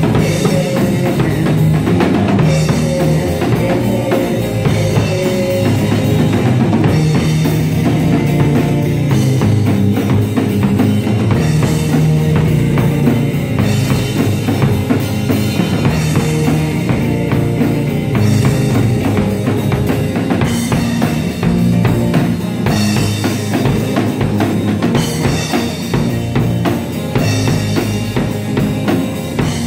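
Live rock band playing loudly: a Yamaha drum kit beating out a steady rock rhythm on kick and snare under two amplified electric guitars, one of them a hollow-body.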